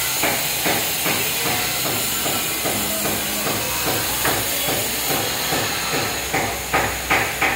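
Repeated knocks on a building site, evenly spaced at about two and a half a second, with the last few louder, over a constant hiss.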